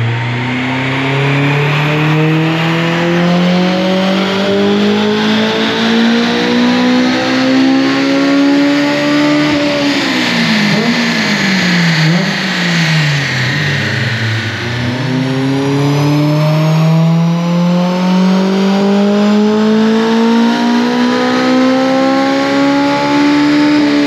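Honda S2000's four-cylinder engine on a rolling-road dyno, pulled at full throttle through an M2 Motorsport cat-back exhaust with its baffles out: the revs climb smoothly from low to very high over about ten seconds, drop back with a few short dips and rises, then climb through a second full pull and fall away near the end.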